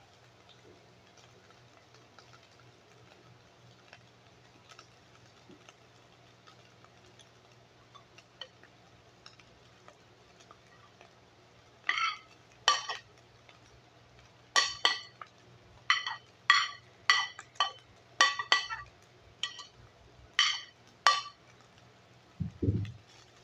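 Near quiet, then from about twelve seconds in a run of a dozen or so sharp clinks and knocks of a spoon and bowl against an aluminium pot as shredded cabbage is scraped into the browned ground beef, ending with a low thump.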